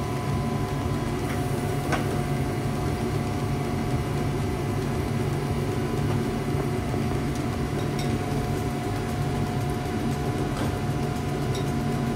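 Steady hum of a commercial kitchen exhaust hood fan running, with a few faint clicks.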